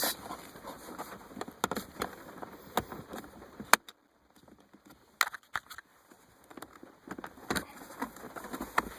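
Plastic gear-shift trim bezel being handled and pried at its clips: scattered light clicks and small rubbing noises, with a brief quiet spell around the middle.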